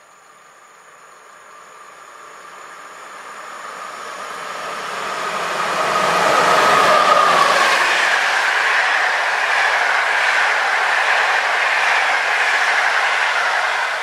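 PKP class EP09 electric locomotive hauling an intercity passenger train, approaching and running through at speed. It grows steadily louder, peaks about seven seconds in as the locomotive passes, then the steady rush of the coaches' wheels on the rails carries on.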